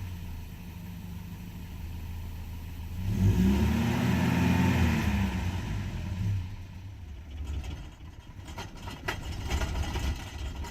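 Mercedes 190E 2.0 four-cylinder engine running on natural gas at a rough idle. About three seconds in it is revved once and the pitch rises and falls back, then it runs weaker and unevenly near the end. The owner judges the idle worse after turning the idle screw.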